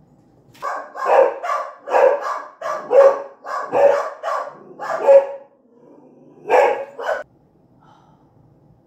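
Dog barking indoors: a rapid run of loud barks, about two a second for some five seconds, then a short pause and two more barks.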